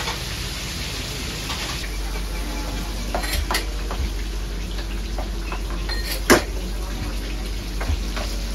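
Busy restaurant kitchen: pots, pans and utensils clank now and then over a steady hiss of frying food on gas burners. One sharp metal clank about six seconds in is the loudest sound.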